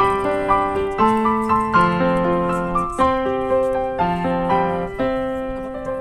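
Background piano music: a gentle melody with notes struck about twice a second, settling on a held chord that fades away near the end.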